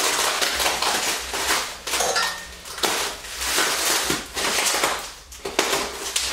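Bubble wrap crinkling and rustling in irregular bursts, with small crackles, as it is pulled and cut away by hand.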